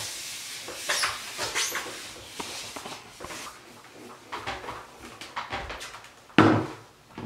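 Steam iron pressed and worked over a damp towel, with irregular bursts of hissing and fabric rubbing, and one loud knock about six and a half seconds in.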